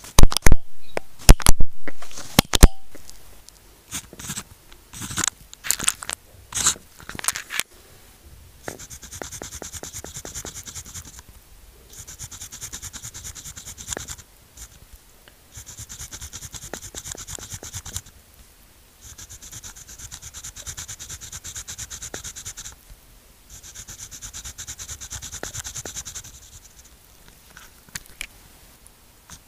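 Pen writing on sticky-note paper. Over the first several seconds there are a series of loud, sharp clicks and knocks. Then come stretches of steady scratching pen strokes, each two to three seconds long, with short pauses between them.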